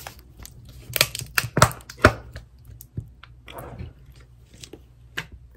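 Handling noises as a plastic sriracha squeeze bottle and other items are picked up on a kitchen counter: a few sharp knocks and clicks about one to two seconds in, then a brief rustle and light ticks.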